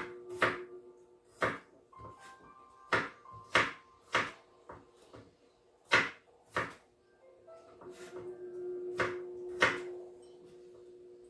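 Kitchen knife chopping garlic cloves on a wooden cutting board: sharp, uneven chops about once a second, with a gap of a couple of seconds near the end.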